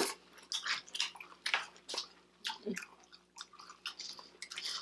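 Close-miked chewing of food, with wet mouth clicks and lip smacks coming a few times a second.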